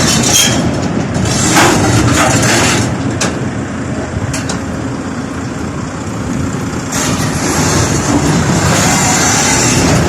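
Heavy diesel machinery running steadily, with a few sharp metallic clicks and clanks.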